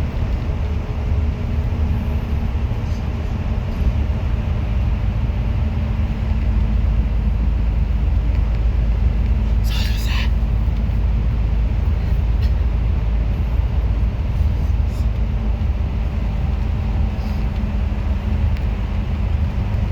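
Bus engine and road noise heard from inside the cabin, a steady low rumble, with a short hiss about halfway through.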